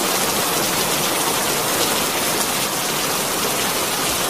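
Steady rain on the soundtrack: an even, unbroken hiss of falling rain.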